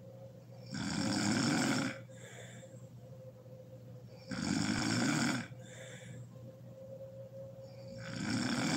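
A sleeping woman snoring: a loud rasping snore about every three and a half seconds, three in all, each followed by a softer breath.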